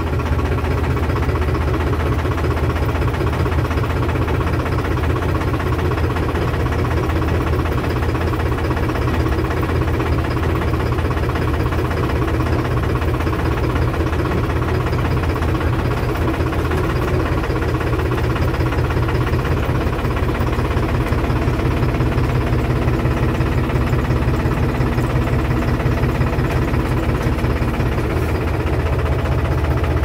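Tractor's diesel engine running steadily, heard from inside the cab.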